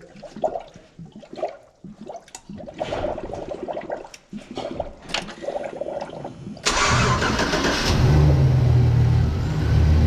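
Scattered clicks and knocks, then about two-thirds of the way in a 2007 Chevrolet Silverado's 5.3-litre V8 cranks and starts, running steadily with its mass airflow sensor unplugged and no air filter on.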